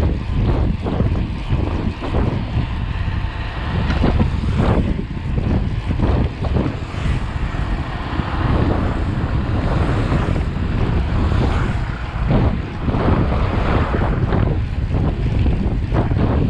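Wind buffeting the microphone of a handlebar camera on a moving bicycle: a loud, uneven low rumble that swells and dips with the gusts.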